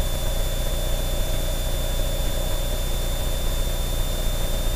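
Steady drone of an aerobatic airplane's engine and propeller, heard inside the cockpit, with a faint steady high whine over it.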